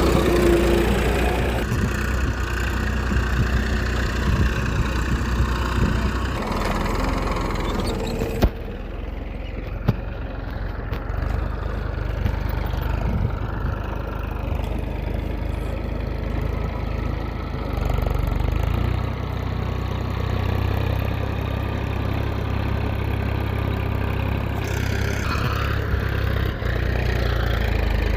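A small motor running steadily with a low hum, its sound shifting abruptly several times, with a single sharp click about a third of the way in.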